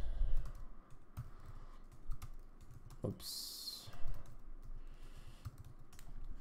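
Typing on a computer keyboard: irregular key clicks and taps as a search phrase is entered, with a heavier knock right at the start. There is a brief hiss about three seconds in.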